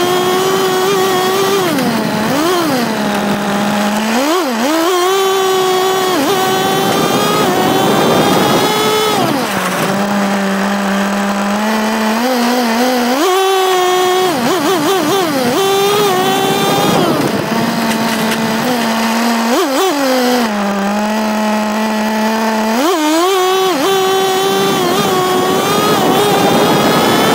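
Nitro RC car's small two-stroke glow-fuel engine running at high revs, dropping three times to a lower steady pitch for a few seconds and climbing back with quick throttle blips.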